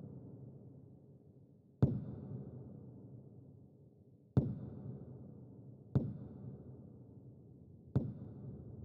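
Sparse soundtrack music: four deep struck notes, each ringing out slowly before the next.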